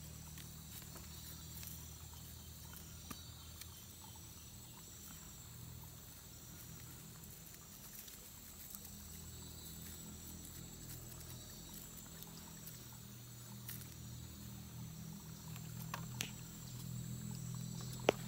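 Jungle background with a steady high insect drone and a low steady hum, over which come small clicks and rustles of hands tying plastic string onto bamboo sticks; a sharper click comes near the end.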